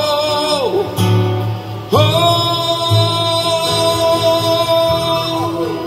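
A man singing long held notes while accompanying himself on an acoustic guitar. One sustained note falls away about a second in, and a second note starts about two seconds in, is held for roughly three and a half seconds, then slides down in pitch at its end.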